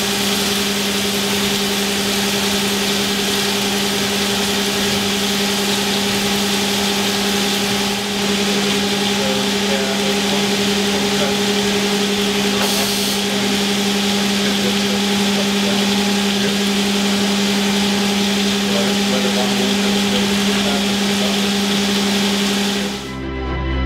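Haas VM3 vertical machining center cutting a part held on its fourth-axis rotary table under flood coolant: a steady machine hum with a hiss of coolant spraying. About a second before the end it cuts off and music starts.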